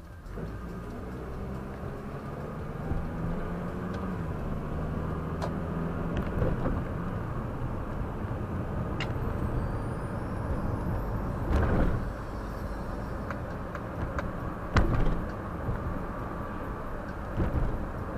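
Car driving on the road, heard from inside the cabin: a steady engine and tyre rumble, with a few short sharp knocks, the loudest about 12 and 15 seconds in.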